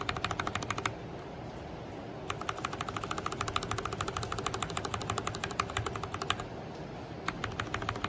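Mechanical keyboard keys with Cherry MX Hyperglide Black linear switches pressed over and over in quick runs of clacks, with short pauses between the runs. The lubed F5 switch is being compared with the unlubed, scratchy F6.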